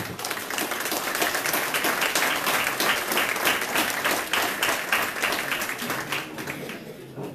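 Audience applauding in a meeting room: many people clapping together in a dense patter that fades near the end.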